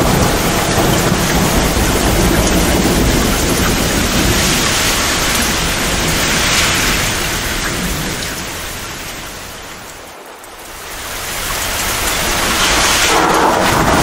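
Heavy downpour of rain with rumbling thunder. About ten seconds in the whole sound fades down and then swells back up.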